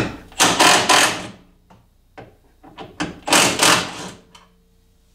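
Hand work on metal hardware behind a car's front bumper: a sharp click, then two bursts of rapid metallic clicking and rattling, each about a second long, with a few single clicks between.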